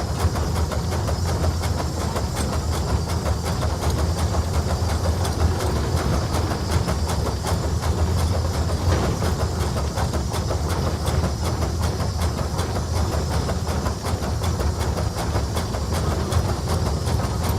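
Case 150 hp steam traction engine running under way, a steady low rumble with rapid, continuous mechanical clicking and clanking and a hiss of steam over it.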